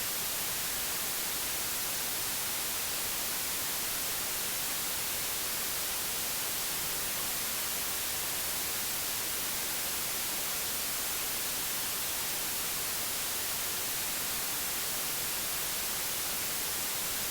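Steady hiss of an untuned analogue TV's static ("snow") noise, even and unbroken, heaviest in the treble.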